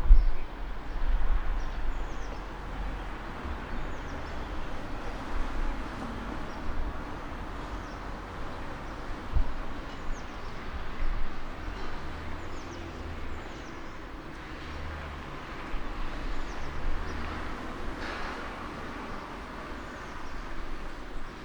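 City street ambience in spring: a steady traffic rumble with vehicles swelling and fading as they pass, birds chirping in short falling notes now and then, and a few dull knocks.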